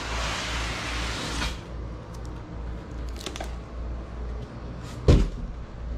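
Cardboard packaging scraping and rustling as an inner box is slid out of a cardboard shipping carton, followed by small handling clicks and a single thump about five seconds in.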